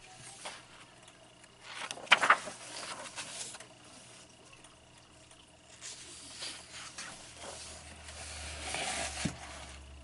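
Paper pages of a coloring book turned by hand: a rustle and flap about two seconds in, softer paper rustling later, and a longer rustle near the end as another page goes over.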